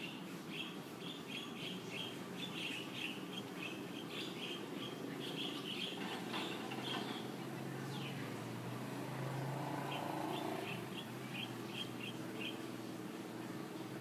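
British shorthair cat chattering at birds: a fast run of short, high chirps, several a second. They break off around the middle and start again a few seconds later. In the pause a low, steady hum swells and fades.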